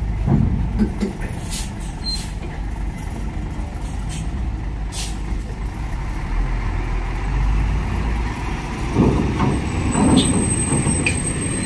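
Loaded heavy diesel truck running at low speed as it drives off a ferry ramp, with several short hisses of air from its brakes early on the way; the engine noise swells about nine seconds in.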